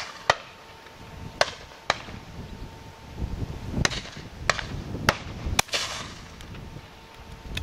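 Shotguns firing at driven partridges from several guns along the line: about seven separate shots at irregular intervals, some closer together in pairs, each with a short echo.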